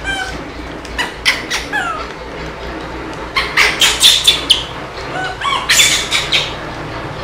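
Baby macaque squealing and screeching in short high-pitched cries, some sliding up or down in pitch. They come in bursts about a second in, around four seconds in (the loudest), and again near six seconds.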